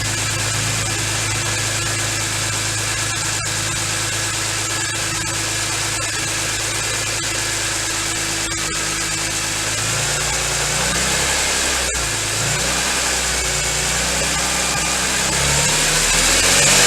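A BMW E46 M3's S54 straight-six engine idling steadily. About ten seconds in, the revs start to rise and fall a little and keep changing to the end.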